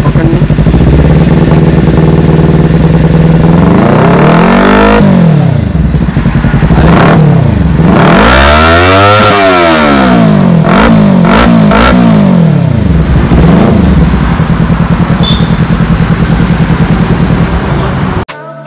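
Kawasaki Ninja 300's parallel-twin engine through an aftermarket exhaust being tried out, idling and then revved: a few rises, one big rev in the middle and several quick throttle blips after it, before it settles back to idle. The sound cuts off abruptly just before the end.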